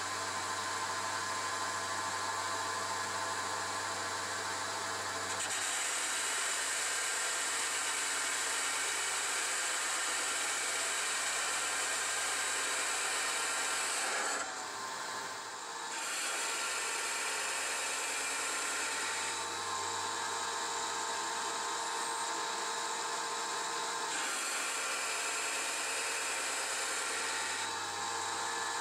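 9x20 benchtop CNC metal lathe running with a steady whine while its tool turns a cast iron backing plate. The sound changes several times as the programmed passes go on, and drops briefly about fifteen seconds in.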